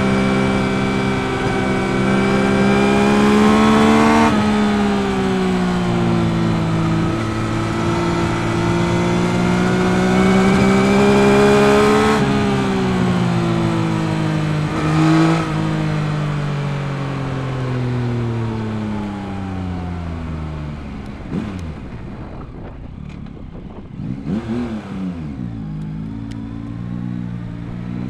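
2021 Yamaha MT-09's 890 cc inline-three CP3 engine under way. It climbs through the revs, shifts up about four seconds in and pulls again, then the throttle closes about twelve seconds in and the revs fall steadily. A few short blips of revs follow near the end.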